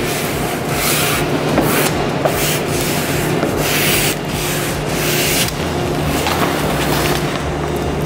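Plastic squeegee sweeping across adhesive vinyl wrap film laid on a refrigerator, a series of scraping rubs of about one stroke a second.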